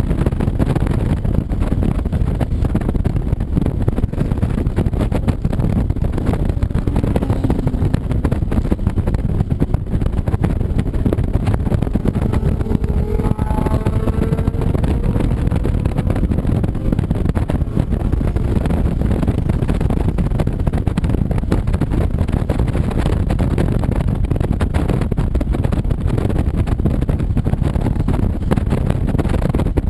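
Motorcycles on a group ride: a loud, steady drone of engines and road noise. A little before halfway, one engine's note rises in pitch as it speeds up.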